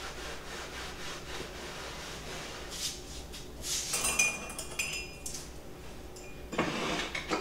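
Ceramic cups and glass kitchenware clinking as they are handled and set down on a countertop, with a few sharp, briefly ringing clinks near the middle and a duller knock near the end.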